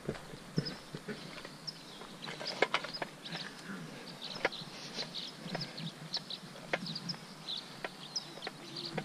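Small birds chirping repeatedly in short, high calls, with scattered faint clicks and taps.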